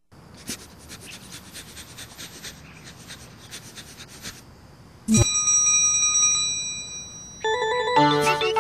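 Instrumental intro of a children's song. A soft, fast patter of clicks comes first, then a single bright chime is struck about five seconds in and left ringing, and a keyboard melody comes in near the end.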